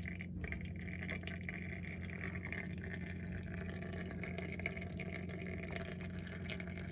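Brake fluid trickling from an open rear-wheel bleeder valve through a clear hose into a plastic catch bottle, driven by a pressure brake bleeder that is purging air from the line. A steady low hum runs underneath.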